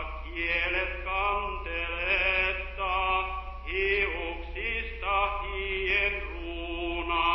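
A voice chanting a simple melody in short phrases about a second long, each held on a few notes, over a steady low hum.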